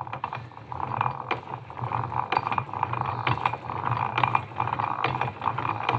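Antique hand-cranked self-advancing pillar drill by the Silver Manufacturing Company, about a century old, being cranked: its cast-iron gears mesh and its flywheel spins, giving a steady run of metallic clicking and clinking.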